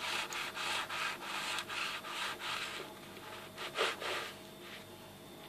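Knife sawing back and forth through the crisp crust of a baked choux pastry shell on a wooden cutting board: rasping strokes about three times a second, growing fainter after about three seconds, with one louder stroke near four seconds.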